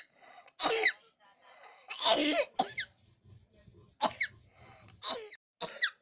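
A four-year-old boy's run of about six coughs. Each carries a high whistle that slides down in pitch, made by a toy whistle lodged in his lung. The longest and loudest cough comes about two seconds in.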